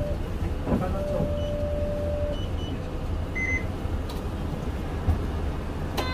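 Interior running sound of a Mitsubishi Fuso Aero Star city bus: a steady low rumble from its diesel engine and drivetrain. A few faint electronic beeps and a held tone come early on, and a short electronic buzzer tone sounds right at the end.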